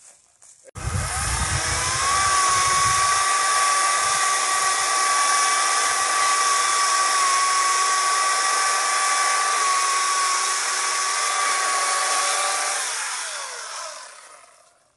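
Electric chainsaw starting with a rising whine and running at a steady high pitch as it cuts into a tree trunk, then winding down and falling in pitch near the end.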